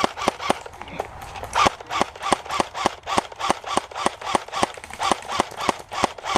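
Footsteps of a person jogging, a steady beat of about four sharp steps a second.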